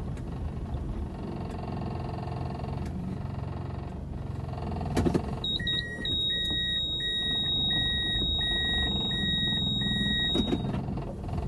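Car driving slowly on a rough dirt road, heard from inside the cabin: a steady low rumble of engine and tyres. From about halfway through comes a run of about seven short electronic beeps, a bit under two a second, over a steady high tone. There are a couple of sharp knocks, one just before the beeps start and one as they end.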